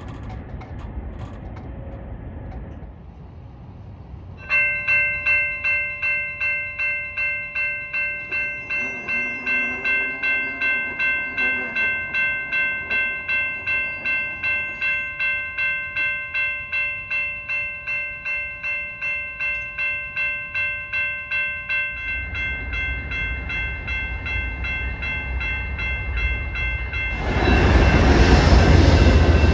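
Railroad crossing warning bell starts about four seconds in, ringing steadily about twice a second. A train's rumble builds in the second half, and near the end an Amtrak Genesis diesel locomotive passes loudly through the crossing.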